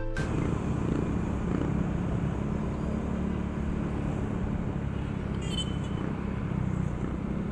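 Motorcycle engine running steadily at cruising speed, heard from the rider's seat, with a low road and wind rumble.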